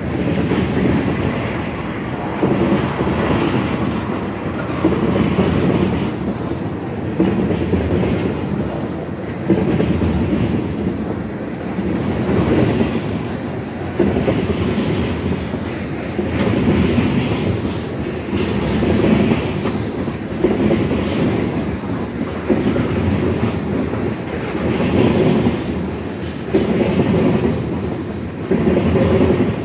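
CSX freight train of tank cars rolling past, wheels clicking over the rail joints. The sound swells and eases about every two seconds as each car goes by.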